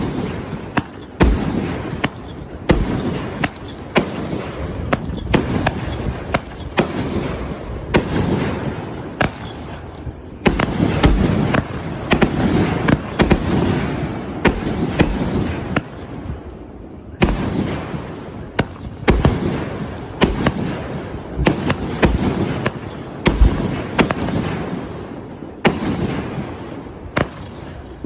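A 176-shot, 1.2-inch consumer fireworks cake firing continuously: sharp reports about once a second over an unbroken rushing noise of the shells going up and bursting.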